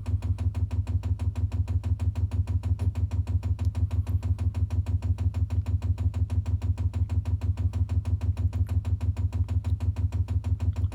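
Chinese diesel heater's solenoid fuel dosing pump clicking in a rapid, even rhythm, a low thump with each stroke, running in priming mode to draw kerosene up the fuel line.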